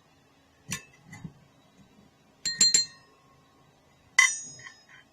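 Clinks of a measuring spoon against a bowl while powder is measured out: a couple of soft knocks, then sharp clinks about two and a half seconds in, and the loudest, ringing clink about four seconds in.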